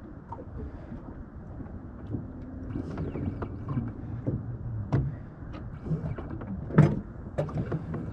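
Steady wind and water noise on an open fishing boat, with a faint intermittent low hum and scattered small clicks and knocks of gear being handled; a sharp knock about seven seconds in is the loudest sound.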